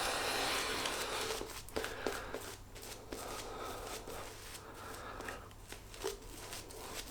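Faint, irregular scratchy strokes of a wet shave on lathered skin.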